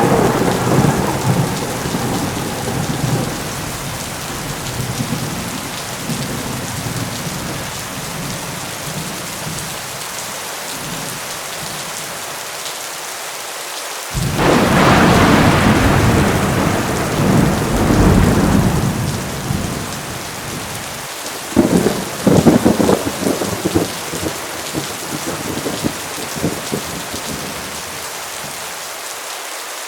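Heavy rain falling steadily through a thunderstorm. A rumble of thunder fades over the first few seconds. Halfway through a loud clap starts suddenly and rolls for several seconds, followed by a run of sharp cracking peals.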